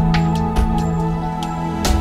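Background music: sustained held tones over a low bass, punctuated by several sharp hits, the strongest near the end.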